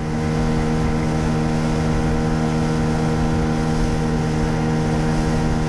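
Hidea 9.9 hp outboard motor running at a steady speed, driving an inflatable boat along, with wind and water rushing past.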